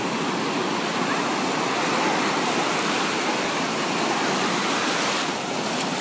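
Ocean surf breaking and washing over the shallows in a steady, loud rush, easing slightly about five seconds in.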